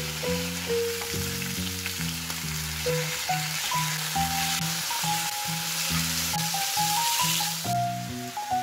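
Pork belly slices and sliced garlic sizzling as they fry in a nonstick pan, a dense crackling hiss that softens near the end. Light background music with a stepping melody plays underneath.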